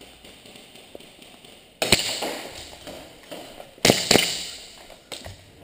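Airsoft 1911 pistols firing about five sharp shots in three quick groups: two shots near two seconds in, two more about two seconds later and a last one near the end. Each shot rings on briefly in a large echoing hall.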